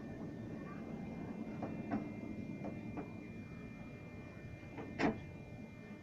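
Metro train standing at a station platform: a steady low hum with a faint high whine from the stationary train and station, broken by scattered faint clicks and one sharper knock about five seconds in.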